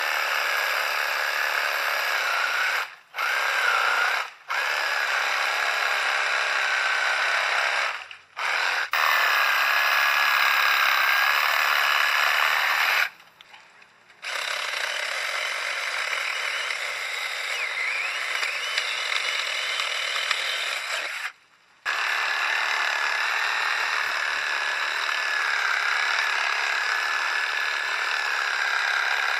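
Portable saber saw running with a steady whine as its reciprocating blade cuts through a tree branch, stopping for a moment about five times and starting again.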